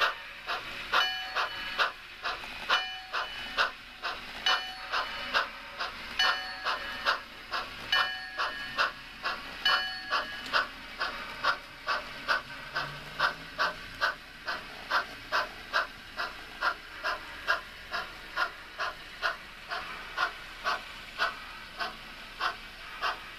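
Sound-equipped model of Yosemite Valley's 1922 Baldwin 2-6-0 #29 running with steady steam-exhaust chuffs, about two a second at first and quickening to about three a second as it pulls its train. A bell rings along with the chuffs for roughly the first ten seconds.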